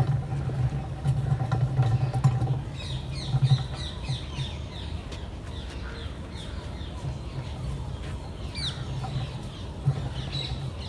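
Birds chirping in quick, short falling notes, in a busy spell a few seconds in and again near the end, over a low rumble that is loudest in the first few seconds.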